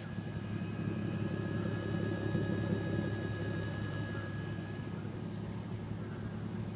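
3.2-litre VR6 engine of a VW R32 idling steadily, heard close to its MagnaFlow exhaust tip as a low, even rumble that swells slightly midway, with a faint steady high whine over the first few seconds.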